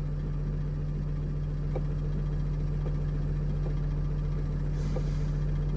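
Freshly installed 3.0L V6 diesel of a 2007 Freightliner Sprinter running steadily at a slightly raised idle, the throttle held just above 1,000 rpm, heard from inside the cab. The mechanic takes its unsteadiness for the engine computer relearning after everything was disconnected.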